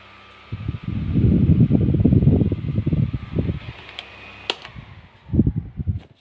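Miyako wall-mounted electric fan running with a steady motor hum while its airflow buffets the microphone in loud low rumbles. About four seconds in, the control knob on the base clicks twice, and the motor hum then slides down in pitch as the fan is switched off and spins down.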